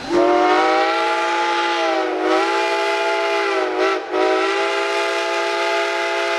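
Train whistle sounding one long blast of several tones at once. It sags a little in pitch about two seconds in, breaks off for an instant just after four seconds, then sounds again at once.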